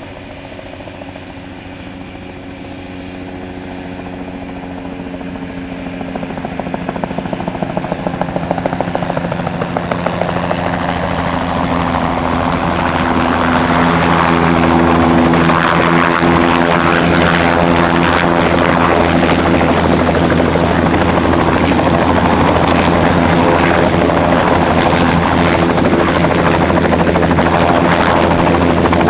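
Bell 206 JetRanger helicopter approaching and coming into a low hover close by. The turbine and rotor noise grows steadily louder over the first dozen seconds or so, then holds loud and steady with a high whine on top.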